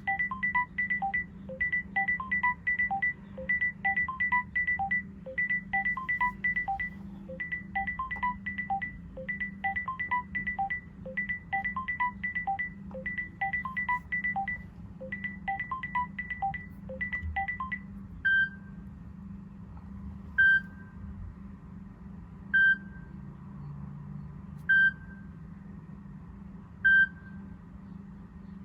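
Electronic alarm clock alarms: first a fast, repeating beeping pattern of quick high beeps with a falling three-note figure, cycling about once a second. About two-thirds of the way in it changes to single short beeps about every two seconds.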